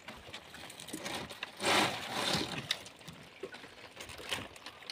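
Water splashing and sloshing as a gloved hand reaches into a flooded net cage to grab live lobsters, loudest about two seconds in, with a few light knocks after.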